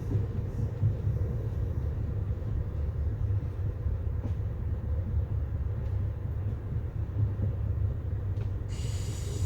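Passenger train running: a steady low rumble with a few faint clicks. Near the end a hiss with high steady tones comes in.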